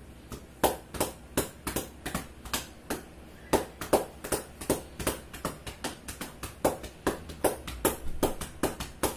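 A hand patting and slapping an elderly man's back in quick, sharp strikes, about three a second and a little uneven.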